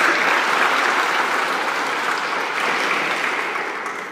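A congregation clapping together, a dense patter of many hands that tapers off near the end.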